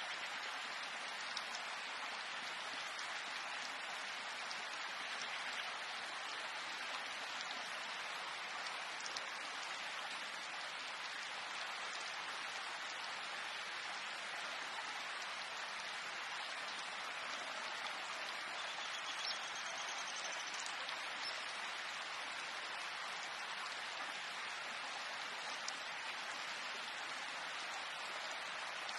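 Steady rain falling: an even hiss with scattered faint drip ticks.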